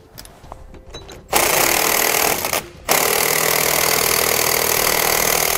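Cordless impact wrench hammering a nut off a leaf-spring eye bolt, starting about a second in, stopping briefly, then running again.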